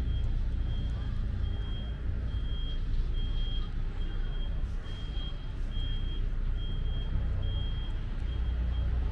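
A vehicle's reversing alarm beeping, a single high-pitched beep repeating a little more than once a second, over a steady low rumble.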